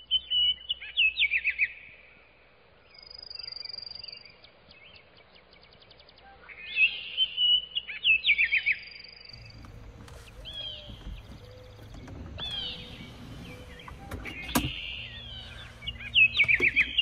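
Songbirds singing, with a loud phrase of quick falling whistles repeated three times: at the start, about 7 s in and near the end. Softer calls and a high thin trill fall between them. A low rumble comes in about halfway through, and there is one sharp click a few seconds before the end.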